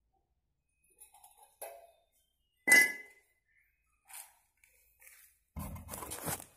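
Scattered light metallic clinks of metal parts and tools being handled, with one loud ringing clink about three seconds in. Near the end comes a second of rumbling handling noise from a hand on the camera.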